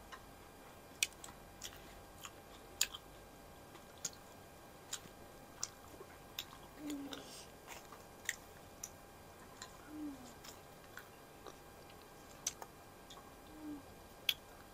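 Quiet eating sounds of people chewing flatbread by hand: scattered sharp mouth clicks and smacks, every half second to a second, with three brief low hums.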